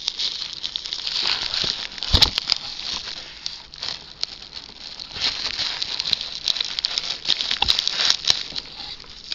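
Bubble wrap being pulled out and handled: continuous crinkling and rustling with small crackles, and a knock about two seconds in.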